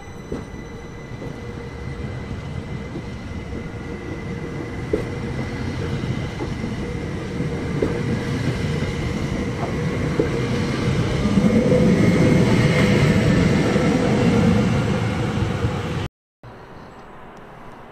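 A train approaching and passing, its running noise growing steadily louder to a peak with a steady whine over it and a few sharp wheel clicks. Near the end it cuts off abruptly to a quieter, steady rumble.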